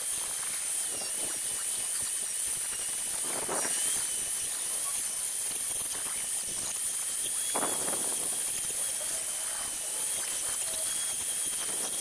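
Foredom flex-shaft rotary tool running at high speed with a sanding drum against a wooden fish carving. It makes a steady high whine over a hiss, its pitch wavering slightly.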